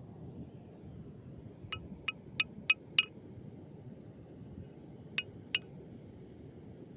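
Hard objects striking with short, ringing clinks: a quick run of five, then two more a couple of seconds later, over a steady low rumbling hiss.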